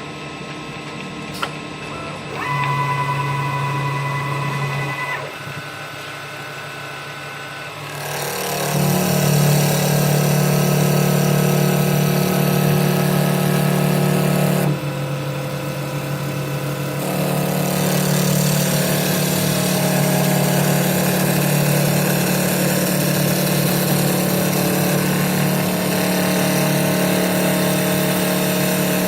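CNC wood turning lathe (310AS, with automatic loader) running: a short machine whine about two seconds in, then from about eight seconds a loud steady hum with a hiss on top. The hiss drops away for a couple of seconds about midway and then comes back.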